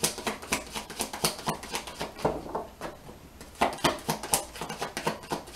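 A deck of oracle cards being shuffled and handled by hand: an irregular run of sharp clicks and taps, several a second, with a few louder snaps near the middle.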